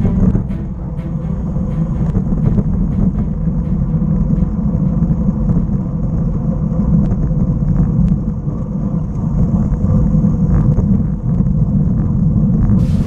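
Wind buffeting and road rumble picked up by a camera on a road bike while riding: a steady low roar with scattered faint clicks.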